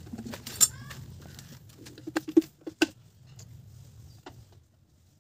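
A few sharp knocks and clicks, one loud one about half a second in and a quick cluster of them about two seconds in, over a low steady hum.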